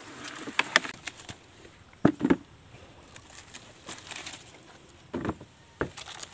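Cucumber vines being handled while cucumbers are picked by hand: leaves rustling, with a few short, sharp snaps and knocks, the loudest about two seconds in and more near the end.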